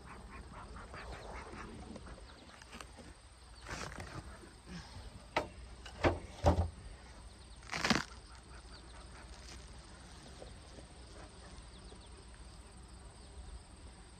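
A few sharp knocks and thumps, with a short whoosh about eight seconds in, as a beehive's metal-clad cover and a bee smoker are handled, over a steady outdoor background with faint insect chirping.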